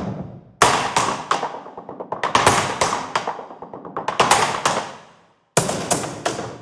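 Sampled cardboard-box percussion from the Box Factory virtual instrument: short rhythmic phrases of taps and thumps. A new phrase starts about every one and a half to two seconds, with a brief silence before the last one.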